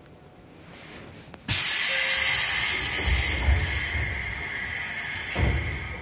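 Air-operated doors of a Seibu 101 series train closing: a sudden loud hiss of compressed air about a second and a half in that slowly tapers off, with a thud near the end.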